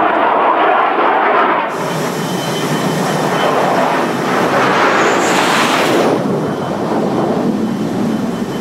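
Jet noise of a North American A-5 Vigilante, powered by twin General Electric J79 turbojets, flying on approach with its landing gear down: a loud, steady rushing sound that turns brighter and hissier about two seconds in and loses that hiss again around six seconds.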